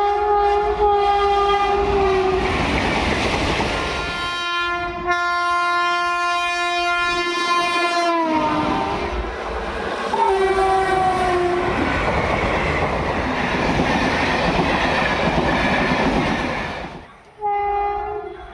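Indian Railways locomotive horn sounding several long blasts, each sagging in pitch as it cuts off, while a train rumbles and clatters past over the rails. A few seconds of steady passing-train rumble follow, then after an abrupt break another horn blast starts near the end.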